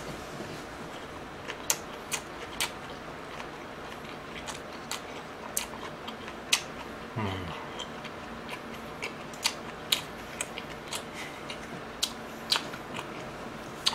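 Close-miked chewing of a lettuce wrap of marinated pork rib with raw garlic and pickled radish, with irregular crisp crunches and wet mouth clicks. About seven seconds in there is a short hum from the eater.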